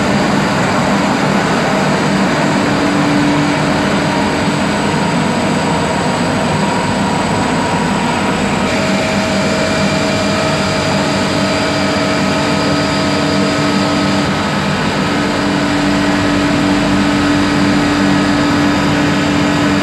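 Olive oil mill machinery running: a loud, steady mechanical hum with several steady whining tones. The mix of tones shifts slightly about nine seconds in.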